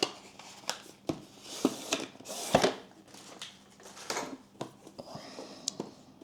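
Product packaging being opened and handled: scattered clicks and taps with crinkling, rustling swishes, the loudest knock about two and a half seconds in.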